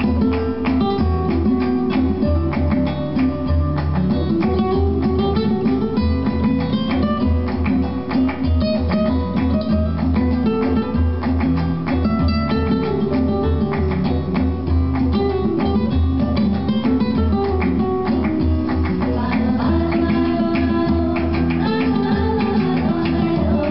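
Flamenco-style guitar music played through PSB B-25 bookshelf speakers driven by a Sony TA-N7050 amplifier, with quick plucked notes over a strong, steady bass.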